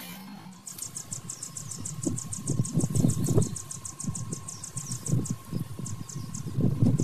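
Insect chirping in a fast, even pulse of high ticks, about eight a second, thinning out near the end. Under it, irregular low rumbling grows louder from about two seconds in.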